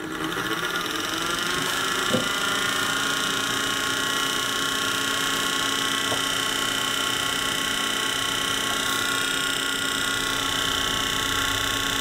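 Cooling fans of a Peltier-plate refrigerator switching on, rising in pitch over the first second as they spin up, then running steadily with a hum: the cooling system has restarted. A light tap about two seconds in.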